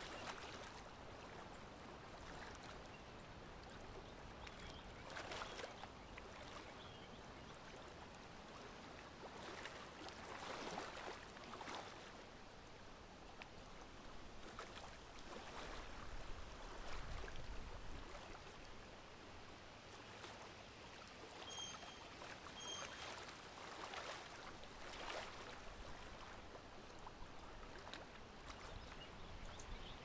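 Faint lake water lapping at the shore in irregular swells, under a light breeze. A bird gives a few short chirps about two-thirds of the way in.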